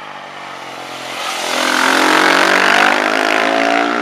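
Rally motorcycle's engine approaching at speed, growing steadily louder to a peak about two to three seconds in, then fading as it goes by.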